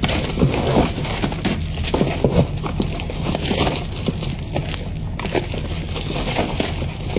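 Plastic-bagged products and cardboard rustling and crinkling as hands rummage through a shipping box, in an irregular stream of small crackles.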